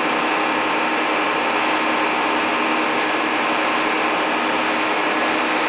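Caterpillar E240B excavator's diesel engine running steadily with an even, unchanging drone.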